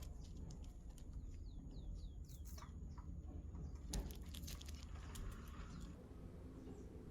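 Small birds chirping: a run of quick, falling chirps, then a cluster of sharp chirps and a click about four seconds in, over a faint low rumble.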